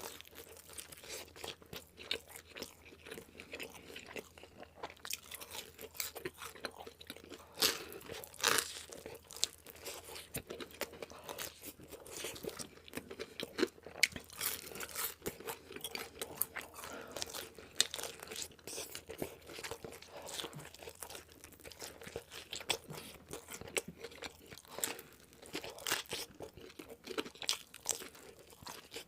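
A person biting into and chewing crunchy fast food close to the microphone, irregular crisp crunches with a few louder bites among them.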